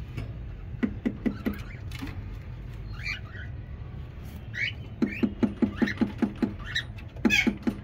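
Ringneck parakeets making short, high chirps, mixed with quick runs of low clicking pulses, about six a second, briefly near the start and steadily from about five seconds in.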